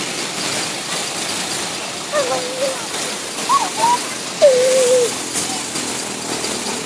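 Steady roadside traffic noise, with three short wavering cries about two, three and a half, and four and a half seconds in. No bus horn melody sounds.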